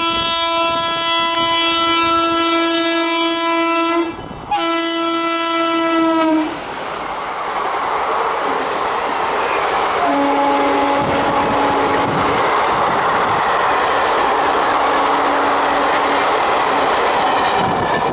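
Express train's horn sounding a long blast, a brief break, then a second blast as the train approaches at speed. The rushing rattle of the passenger coaches then runs on as they pass close by, with two fainter, lower horn blasts sounding over it.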